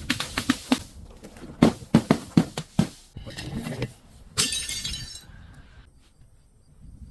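Glass bottle cracking and breaking under crushing: a run of sharp cracks, then a loud burst of crunching, shattering glass about four and a half seconds in, fading after about a second.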